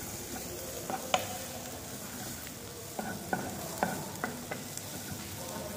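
Wooden spoon stirring chopped onion and garlic sweating in butter in a nonstick pan. There is a faint steady sizzle, and the spoon knocks sharply against the pan about a second in and several times between about three and four and a half seconds in.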